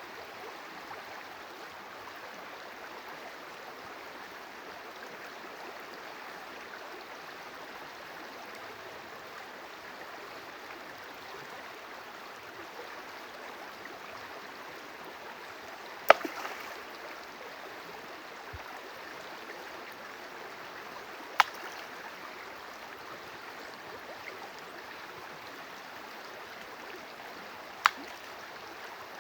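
Steady running water of a stream, with three sharp clicks spaced several seconds apart in the second half.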